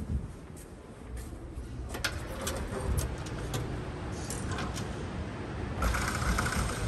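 Footsteps on a hard stone-tiled floor, about two steps a second, over a steady low rumble of building noise. A short rushing hiss comes in near the end.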